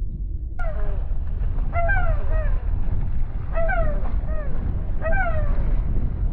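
A gull calling overhead: a run of short, falling calls repeated every second or so. Wind buffets the microphone throughout and is the loudest sound.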